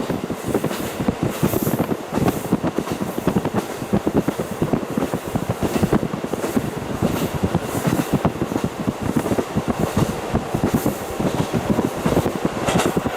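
KiHa 40 diesel railcar running along the line, heard through a fully opened window: a continuous fast rattle and clatter of wheels on rail and the moving car, with a steady low rumble underneath.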